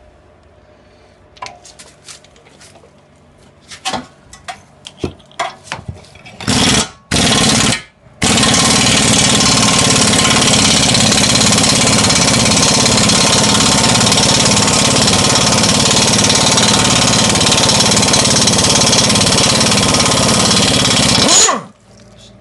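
Impact wrench hammering on the lower control arm nut: two short bursts, then a long continuous run of about thirteen seconds that cuts off suddenly. Scattered metallic clinks of tools come before it.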